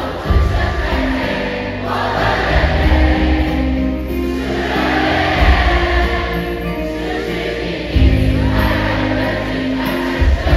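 A large concert crowd singing a pop song along together like a choir, over the live band's steady beat and chords.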